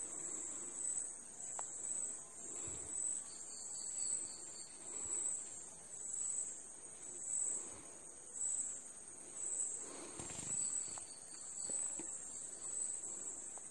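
A steel spoon stirring chopped onions in a clay pot, soft scraping strokes about once a second. Behind it a steady, high-pitched pulsing chirr, with two short runs of rapid high pips.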